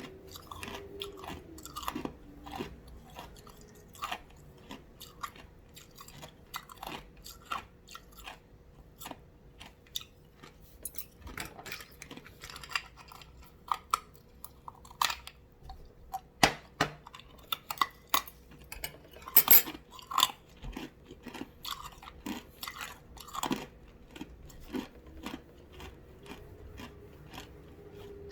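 Ice being bitten and chewed: crunching and cracking in irregular sharp snaps, several to the second, with louder bites now and then.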